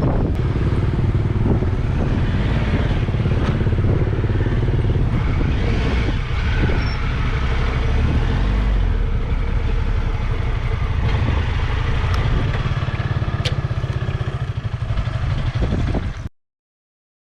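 Triumph Tiger 1200 XCA's three-cylinder engine running as the motorcycle rides along, with a few sharp knocks in the mix; the sound cuts off suddenly about a second before the end.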